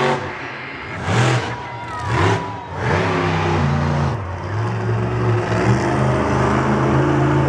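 Monster truck engine revving hard twice in quick surges, then running steadily at high revs.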